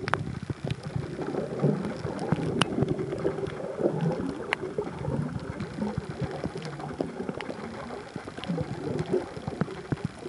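Underwater sound picked up by a compact camera sealed in a soft waterproof case: muffled churning and gurgling of water, with many scattered sharp clicks.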